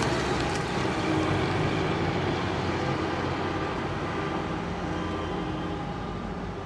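A car driving away, its engine and road noise fading steadily.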